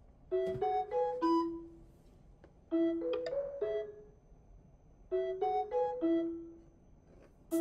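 Background music: a light piano melody played in short phrases of three or four notes, with pauses between the phrases.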